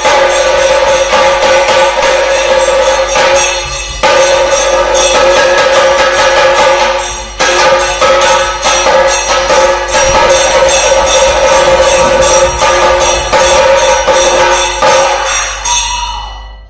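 Background music with a jingling percussion beat and a sustained note, fading out near the end.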